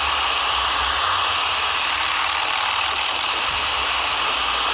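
Steady hiss like static, with a low rumble underneath that weakens about a second in.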